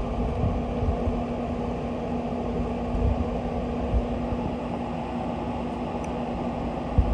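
Steady machine hum with one constant low tone, unchanging throughout, and a few faint low knocks.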